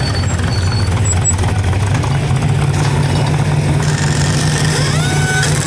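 Off-road race trophy truck's engine running at a steady low idle. Near the end comes a short rising whine that levels off.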